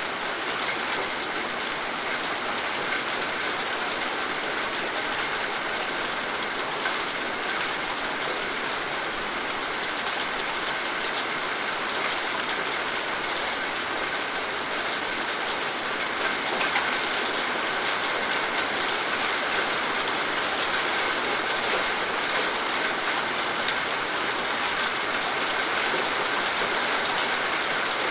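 Steady rain falling, an even hiss with scattered drop patter on surfaces.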